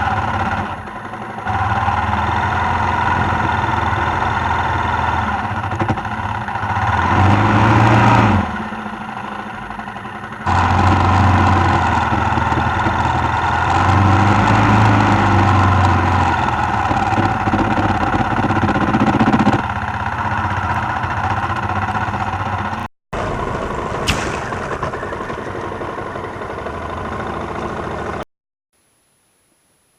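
Suzuki XF650 Freewind's single-cylinder engine running as the motorcycle is ridden, swelling under throttle about seven to eight seconds in. The sound comes in edited clips with abrupt cuts, a brief dropout, and stops dead near the end.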